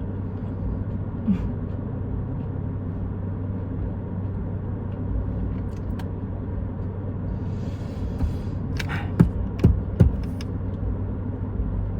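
Steady low rumble of a car idling, heard from inside the cabin, with a constant low hum. A few short clicks and knocks about nine to ten seconds in.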